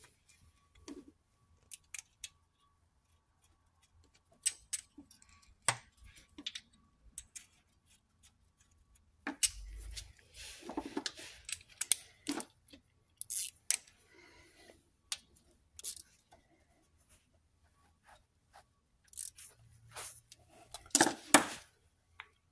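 Scattered light metallic clicks and taps of hand tools and parts at the front of a VW EA888 2.0 TSI engine block as a balance shaft is fitted, with busier bursts of clattering about halfway through and near the end.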